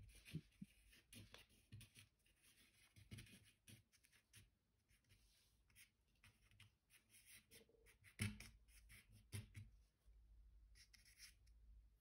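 Faint scratching and dabbing of an ink-dipped twig drawn across paper, with a soft knock about eight seconds in and a couple of smaller ones after it.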